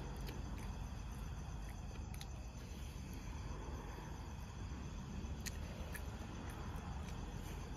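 Night-time outdoor ambience: a steady low rumble with faint insect chirring high above it, and a few soft clicks.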